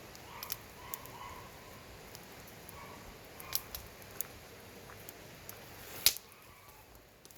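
Wood campfire crackling, with scattered sharp pops and one loud snap about six seconds in.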